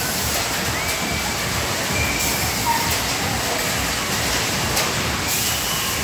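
Steady loud rushing noise as a fairground swinging pendulum ride runs, heavily buffeted by wind on the microphone. A few faint, thin high cries come over it.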